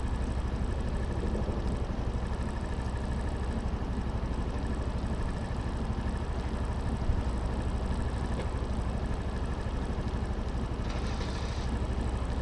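Suzuki Address 125 scooter's single-cylinder four-stroke engine idling steadily while stopped, with a short hiss near the end.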